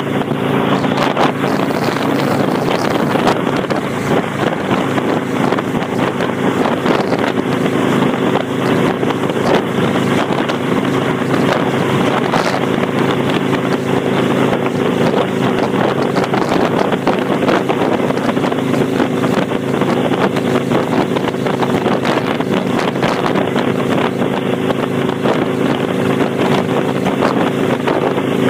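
Kawasaki Vulcan 800's V-twin running steadily at cruise through Vance & Hines Straight Shots exhaust with the baffle plug removed, with wind buffeting the microphone.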